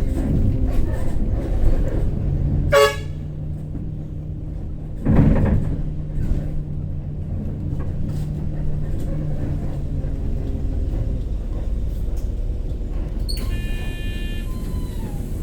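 Shuttle bus engine running steadily, with a short horn toot about three seconds in and a brief burst of noise about five seconds in. A longer pitched tone sounds near the end.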